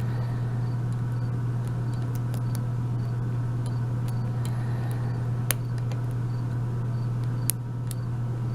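Faint, scattered light clicks of a tension wrench and pick working the pins of an Abus 72/40 euro cylinder during single-pin picking, over a steady low hum.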